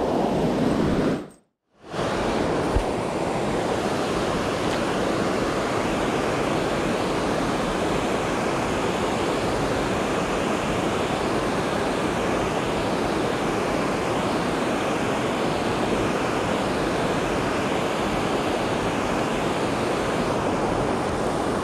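Steady rushing of river water pouring over a low-head dam, with a brief dropout about a second and a half in.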